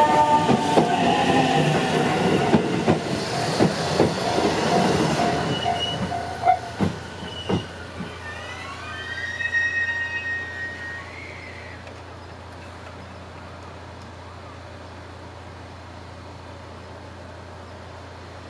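An electric train passing and running away along the line. Its wheels rumble and knock over the rail joints, with steady high squealing tones, and the noise fades over the first seven seconds or so. A few gliding squeals follow at around ten seconds, then only a low steady hum remains.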